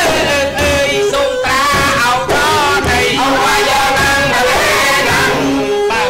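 Khmer yike theatre singing: a voice sings a gliding, ornamented line over the ensemble, with low beats from the large yike frame drums.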